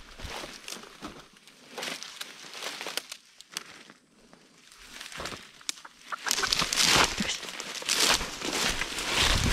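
Leaves and brush rustling and crackling as something pushes through undergrowth, much louder from about six seconds in.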